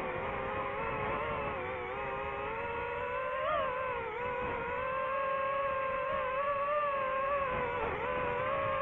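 DJI FPV drone's motors and propellers whining in flight, the pitch wavering with throttle and briefly rising about three and a half seconds in.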